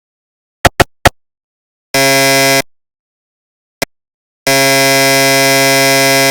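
Synthesized recreation of GE SIGNA Victor MRI scanner sounds. Three sharp clicks are followed by a short steady buzz about two seconds in, then one more click and a loud steady buzz from a little past halfway, with dead silence in between.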